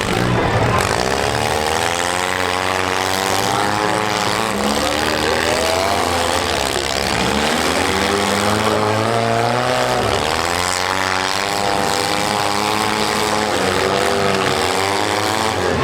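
Several small car engines revving at once, their pitches rising and falling against each other without a break.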